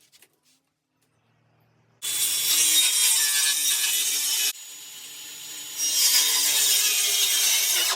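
Power saw cutting plywood. It starts abruptly about two seconds in, eases to a lower level for a moment past the middle, then cuts loudly again through to the end.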